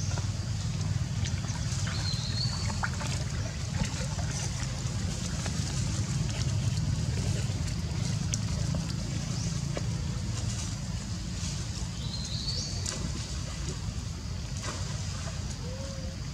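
Pond-side outdoor ambience: a steady low rumble with water trickling. Two short, high, rising chirps sound, one about two seconds in and another about ten seconds later.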